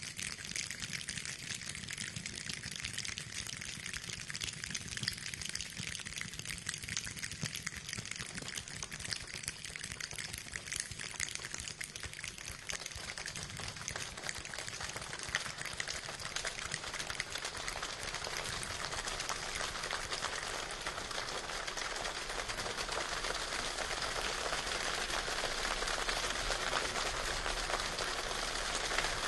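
Floodwater running and splashing along a street as cars wade through it, a steady watery hiss that grows louder over the last ten seconds or so. The street is flooded by a cloudburst.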